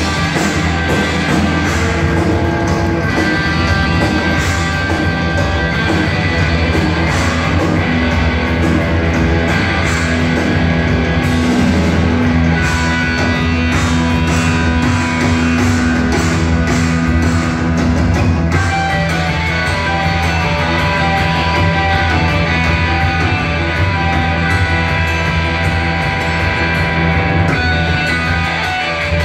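Loud live punk rock from a band playing in a concert hall: distorted electric guitars, bass guitar and drum kit, heard from the audience through the PA.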